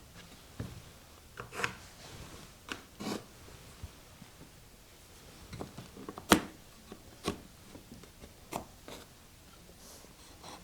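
Small items being handled and set down in a toolbox drawer: scattered light clicks and knocks, about a dozen, with one sharper knock about six seconds in.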